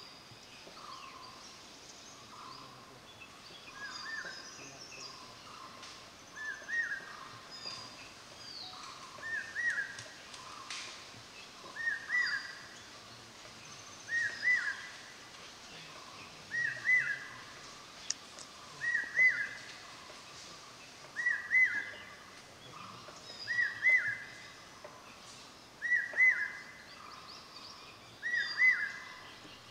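Forest birdsong: one bird repeats a short rising call about every two and a half seconds, each call louder than the last, while other birds chirp higher up in the background.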